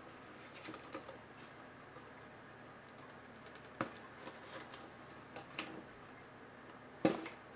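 Light clicks and taps of small plastic and metal parts being handled by hand inside an opened Asus Eee PC 701SD netbook, with a sharper click about four seconds in and a louder knock near the end.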